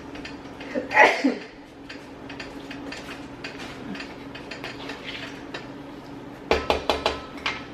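A metal utensil clinking and scraping in a cast iron skillet of cooking rice, with a quick run of sharp knocks near the end. A short, louder sound comes about a second in.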